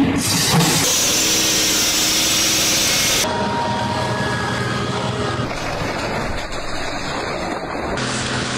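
Heavy excavators' diesel engines running under work, heard across short clips that change abruptly about three seconds in and again near the end.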